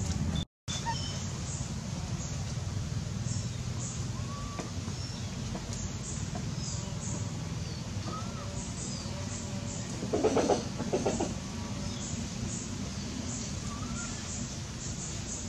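Scattered short, high bird chirps over a steady low rumble, with a louder two-part animal call about ten seconds in.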